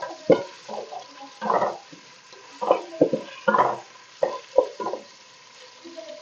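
A spoon stirring and scraping chopped onions and ginger paste frying in ghee in a pot, in irregular strokes with a light sizzle.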